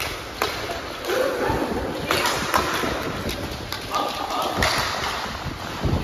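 Players' voices shouting and calling out during a match, two longer calls standing out, over a rough rumbling background, with a few sharp knocks.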